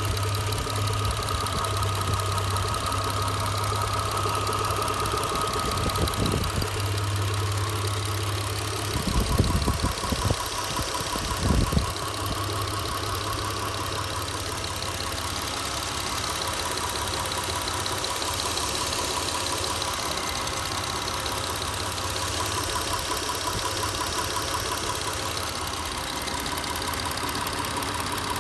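Mitsubishi 6G72 V6 engine idling steadily with a knock somewhere in the engine whose cause is not yet known. A few low thumps come about a third of the way in.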